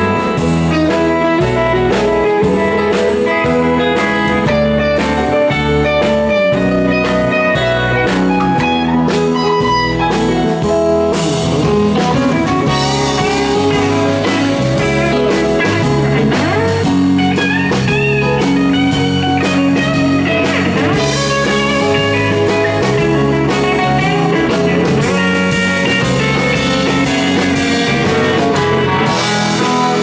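Live electric band jamming, with electric guitars over bass, drums and keyboard. The lead line bends and slides its notes through the middle of the passage.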